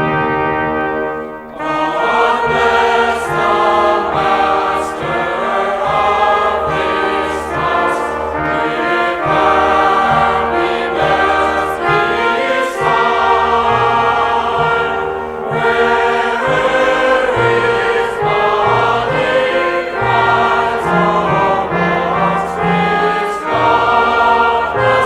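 Music: a choir singing with brass. It opens on a held brass chord that breaks off about a second and a half in, then the choir comes in and carries on.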